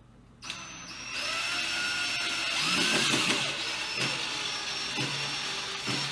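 Cordless drill-driver running steadily as it drives a screw into the table cabinet, with a steady motor whine. It starts about half a second in and stops just after the end.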